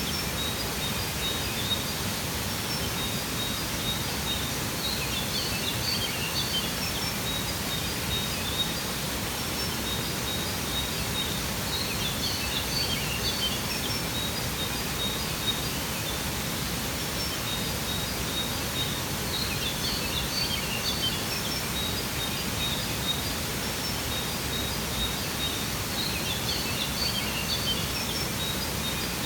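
Steady rush of a waterfall, with bursts of high birds' chirping that come back about every seven seconds over it.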